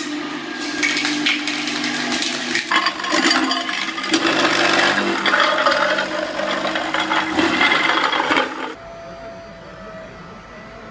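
Blastrac electric floor scraper running, its blade scraping and cracking up old floor tiles over a steady motor hum. Near the end it gives way to a quieter, steady machine hum with a constant tone as a ride-on scraper peels up vinyl flooring.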